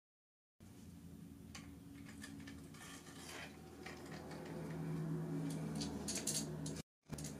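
Hard plastic and metal parts being handled: scattered small clicks and taps as a microphone is fitted onto a 3D-printed magnetic mount, over a steady low hum.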